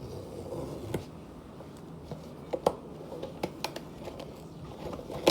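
Scattered light clicks and taps from a blind-box toy's packaging being handled, over a steady low hum.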